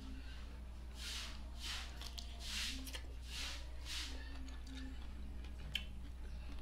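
A person chewing food with hands-on mukbang eating: five chews in a steady rhythm about 0.7 s apart, then quieter. A single sharp click comes near the end.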